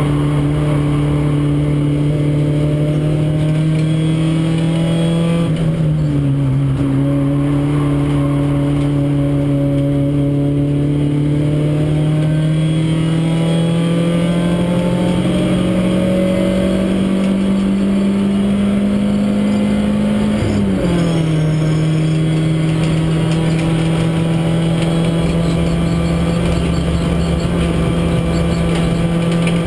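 Renault Clio race car's four-cylinder engine, heard from inside the cabin and pulling hard under load. Its note climbs slowly and steadily, dips briefly about five seconds in, drops in pitch about twenty seconds in, then holds steady.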